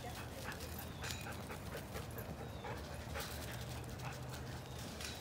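A dog panting, with short crunches of paws and shoes on wood-chip mulch.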